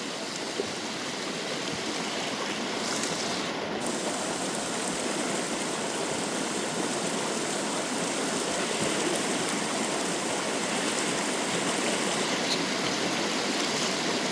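Steady rush of water from a large waterfall, slowly growing a little louder.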